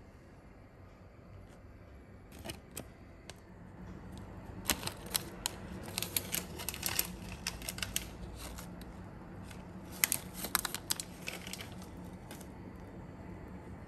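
Light kitchen clicks and taps in quick, uneven clusters, with a low steady hum underneath from about four seconds in.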